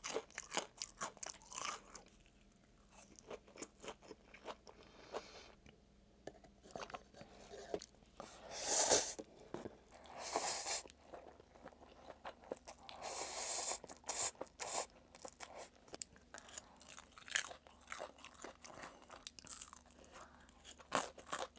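Chewing and crunching of crispy fried snacks (squid and vegetable twigim), with a few longer slurps of instant noodles near the middle.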